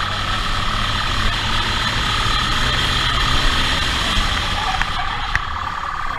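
Motorcycle engine running as the bike rides fast, under a steady rush of wind and road noise.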